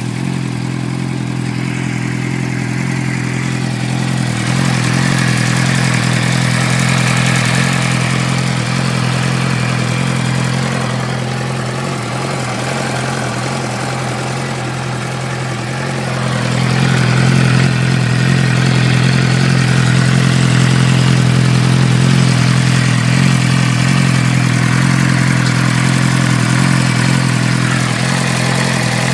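2006 Suzuki GSX-R600 inline-four engine running at a steady idle, with a ticking noise whose cause the owner does not know. It gets louder about halfway through.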